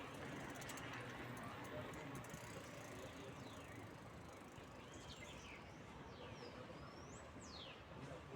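Birds calling with sweeping calls that slide up and down in pitch, several of them in the second half, over a steady background hiss. A few faint clicks come in the first two seconds.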